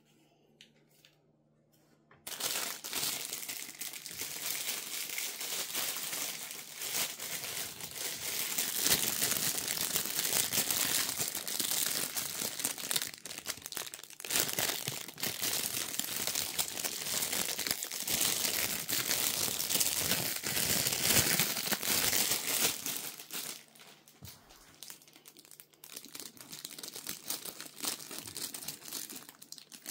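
Crinkling and rustling of packaging wrap being handled and pulled open. It starts about two seconds in, stays dense for some twenty seconds, then turns softer and patchier.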